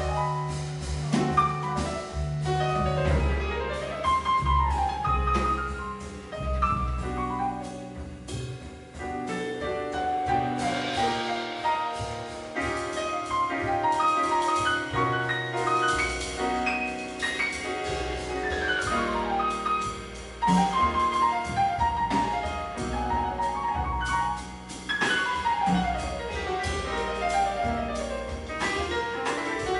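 Live jazz ballad: piano playing chords and repeated cascading runs over double bass and drums, with guitar in the band.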